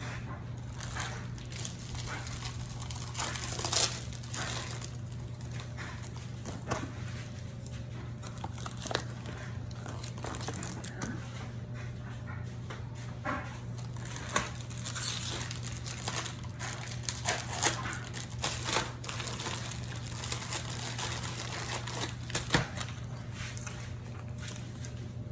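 Plastic candy wrappers and packaging crinkling and rustling as candy bars are handled and packed into a basket, in irregular sharp crackles. A steady low hum runs underneath.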